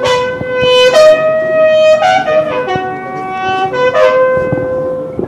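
A military bugle sounding a slow funeral call: single notes each held about a second, stepping up and then back down, ending on a long held note. It is the bugle salute of military funeral honours for a fallen soldier.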